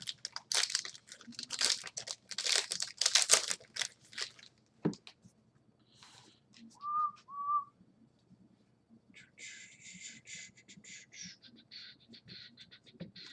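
Card pack wrapper crinkling and tearing open for the first few seconds, then two short whistled notes, then a soft rustle of cards being handled.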